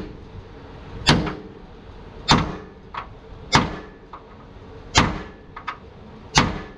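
A sledgehammer striking the steel chassis frame rail of an Isuzu truck during a double-chassis conversion. It lands five heavy blows at an even pace, about one every second and a half, and each rings briefly. Lighter metal clinks fall between the blows.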